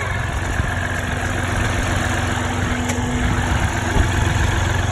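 2014 Jeep Grand Cherokee's 3.0-litre EcoDiesel V6 turbodiesel idling steadily.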